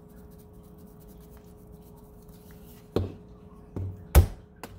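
Four short knocks of hard objects handled on a wooden kitchen counter, starting about three seconds in; the third is the loudest. Under them runs a faint steady hum.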